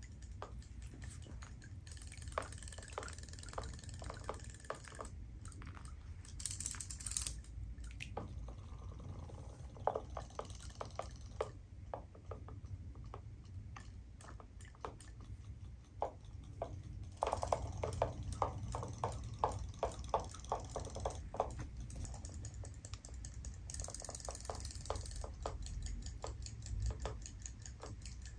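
Robotic toy fish swimming in a plastic tub of water, their flapping tails making runs of quick small ticks and light splashing that come and go.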